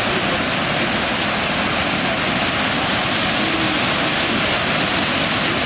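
River waterfall: a loud, steady rush of falling water.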